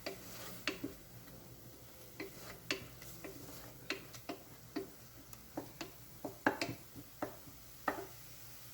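Irregular sharp ticks and clicks from a pan of onion-tomato masala being fried and stirred, about one or two a second over a faint low hum.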